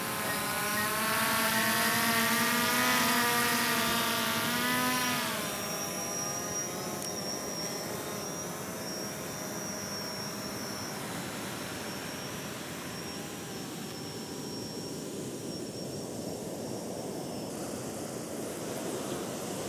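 Quadcopter drone propellers whining as it lifts off from a hand, loud for about the first five seconds with the pitch wavering up and down as the rotors speed up and slow. It then settles into a fainter, steadier whine that fades as the drone flies away carrying a baited fishing line out.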